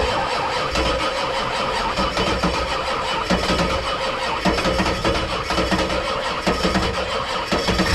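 Ford F-250's 7.3 IDI diesel V8 cranking over on the starter in an even, pulsing rhythm for about eight seconds, only catching and running right at the end. The long crank is the hard start caused by fuel draining back to the tank through a leak, so the cam-driven mechanical lift pump has to re-prime the fuel system before the engine fires.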